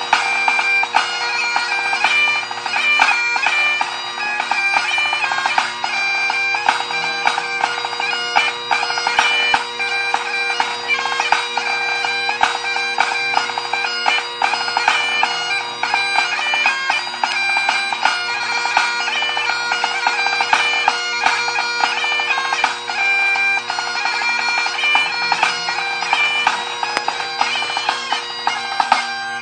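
Great Highland bagpipe playing a march, strathspey and reel over its steady drones, with a pipe-band snare drum playing along.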